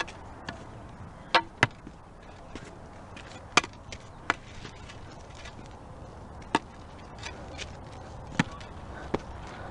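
About seven sharp knocks and clicks at irregular intervals, a pair close together early on, over a steady low background hiss.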